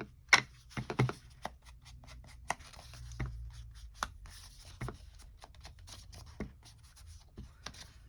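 Paper and card edges being worked over with an ink pad or inking tool: irregular light taps and clicks with soft scratchy rubbing on paper.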